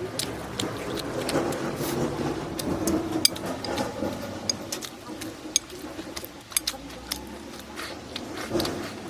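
Eating sounds: close-up chewing and gnawing on chicken feet, with scattered sharp clicks of chopsticks and bowl.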